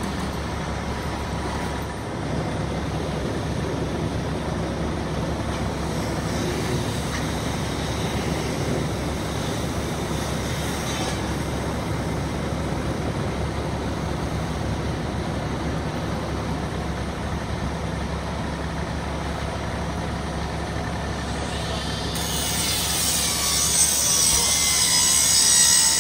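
Fire engine's diesel engine running steadily while pumping water to a charged hose line, a low drone with no change in pitch. About 22 seconds in, a loud hiss rises over it.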